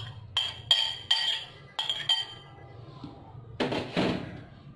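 A metal spoon scraping and clinking against a glass bowl and a stainless steel mixing bowl while marinade paste is scraped onto raw chicken: about five short ringing clinks in the first two seconds, then a louder, duller knock and scrape about four seconds in.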